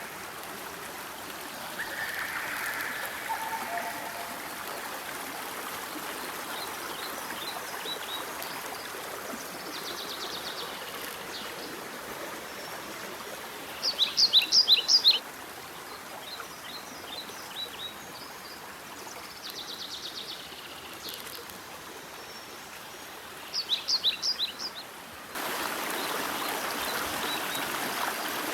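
Mountain stream running steadily over rocks, with a bird calling in two short runs of rapid, sharp high notes, once about halfway and again near the end. The rushing water gets louder shortly before the end.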